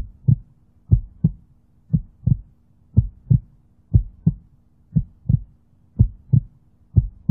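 Heartbeat sound effect: steady double beats, about one pair a second, over a faint low hum, used as a suspense build-up before a reveal.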